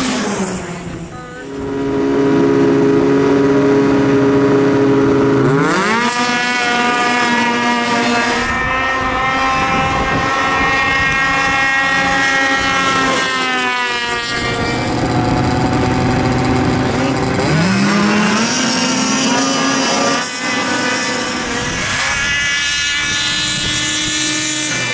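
Racing snowmobile engines at full throttle. The pitch jumps sharply about six seconds in and holds high as the sled pulls. It falls away around fourteen seconds, then climbs again near eighteen seconds and holds high once more.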